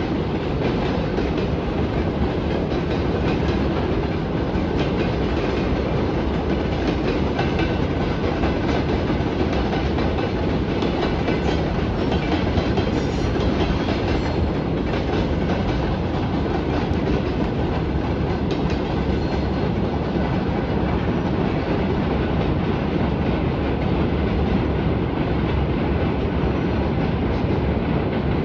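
Freight train wagons rolling past at steady speed, a continuous loud rumble of wheels on rails with clickety-clack over the rail joints.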